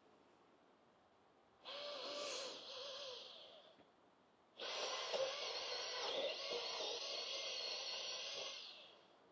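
Chainsaw revved in two bursts: a short one of about two seconds, then a longer run of about four seconds that fades off near the end.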